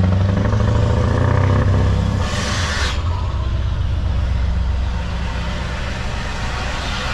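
Scania R530's V8 diesel engine running under way, heard from inside the truck's cab; the engine note is stronger for the first two seconds, then drops and runs on steadily lower. A short hiss sounds about two and a half seconds in.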